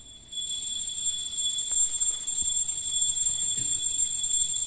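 Puja hand bell (ghanti) rung rapidly and without pause for the evening aarti, a steady high ringing that starts a moment in.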